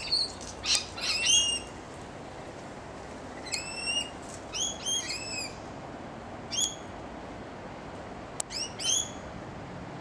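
Rainbow lorikeets calling: short, high-pitched screeches in quick pairs and clusters, repeated several times with pauses between.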